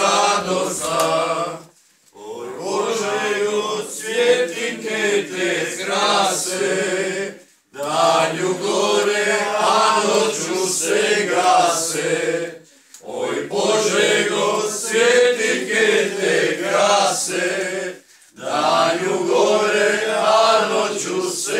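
A group of adults, mostly men's voices, singing a song together without instruments, in phrases of about five seconds with short breaks for breath between them.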